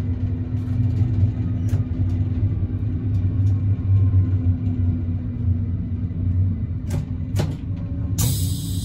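AKN VTA diesel railcar under way: steady low engine drone and rumble of the wheels on the track, with a few sharp clicks. A bright hiss starts near the end.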